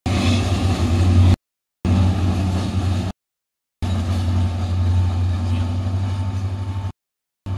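Diesel multiple unit train running with a steady low engine drone, cut off abruptly to dead silence three times for about half a second each.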